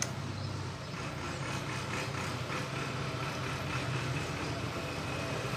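A steady low motor hum, with a sharp click at the very start and a few faint clicks about two seconds in.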